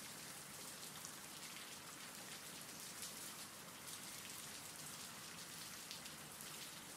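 Faint, steady rain: an even hiss with a light patter of drops.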